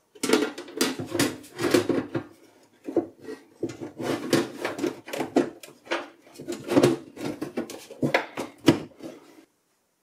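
Metal side panel of a Medion Akoya P5373 desktop tower being fitted and slid shut onto the case: a busy run of knocks, clunks and scraping rubs, which stops suddenly near the end.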